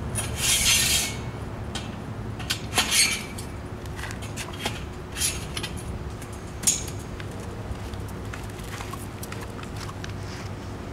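Metal parts of a triathlon bike rack clinking and scraping as they are handled and fitted. There are a few short rattling scrapes in the first seven seconds, the loudest about a second in, then only scattered faint clicks over a steady low hum.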